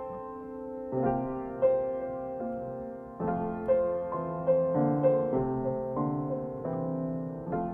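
Slow solo piano music, with notes and chords struck and left to ring out.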